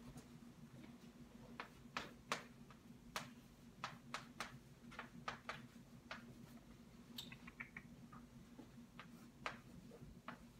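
Faint chalk tapping and scratching on a chalkboard as a name is written out: irregular sharp taps, with a quick run of small ticks about seven seconds in. A steady low room hum runs underneath.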